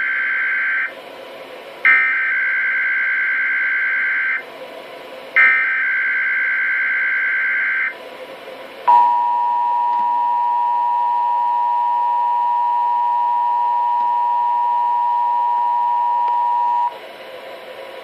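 Reecom R-1630 NOAA weather radio sounding a Required Monthly Test. First come the screechy two-tone data bursts of the EAS SAME header: the end of one burst, then two more of about two and a half seconds each, with a second of static hiss between them. About nine seconds in, a steady 1050 Hz attention tone starts and holds for about eight seconds before cutting off.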